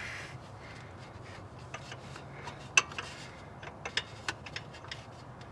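Scattered light metallic clicks and rubbing as a wrench works an engine's drive belt loose and slips it off a pulley, with a few sharper ticks about three and four seconds in.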